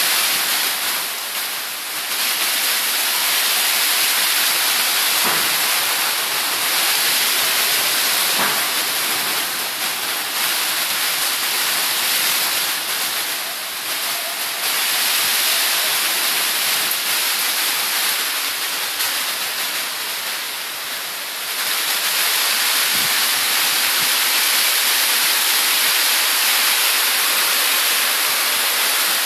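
Heavy rain pouring down in a steady, dense hiss that eases slightly a few times.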